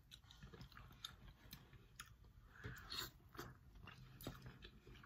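Near silence broken by faint, scattered clicks and crackles: boiled shrimp being peeled by hand and eaten.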